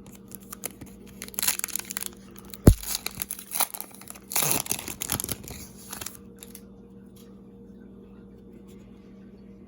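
Plastic wrapper of a trading card pack being torn open and crinkled in two bursts, with a sharp tap in between, then quiet handling.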